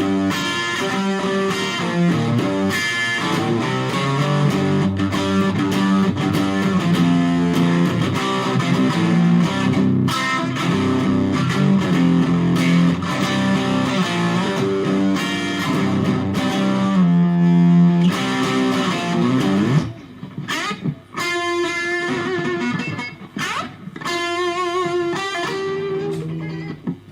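Electric guitar, an FGN Stratocaster plugged straight into a Fender Studio Valve tube amp, played as a busy run of notes. About two thirds of the way through, a held low note slides upward, followed by sparser single notes with vibrato.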